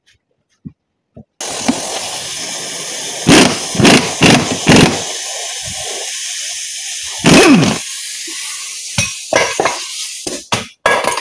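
A steady loud hiss starts suddenly about a second and a half in, with heavy metal knocks and clanks from the U-joint press and axle yoke a few times during it. Near the end, hand tools clatter as they are dropped and bounce on a rubber mat.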